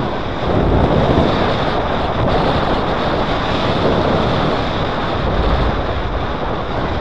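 Airflow buffeting the microphone of a camera mounted on a paraglider harness in flight: a loud, steady rush of wind noise.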